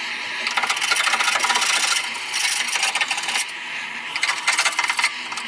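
Hand scraper scraping old underseal off the steel of a car's wheel arch, in rapid scratchy strokes that come in several spells with short pauses between them.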